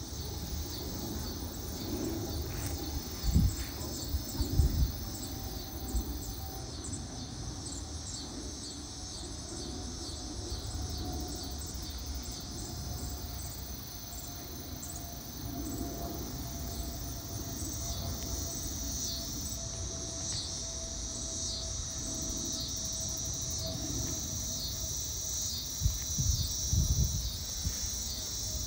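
A steady chorus of insects chirping in a fast pulsing rhythm, over a low rumble and a faint tone that slowly falls in pitch from a jet airliner climbing away in the distance. A few short thumps come about three to five seconds in and again near the end.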